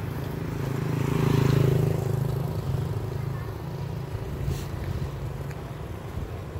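A motor vehicle engine running steadily, growing briefly louder about a second in.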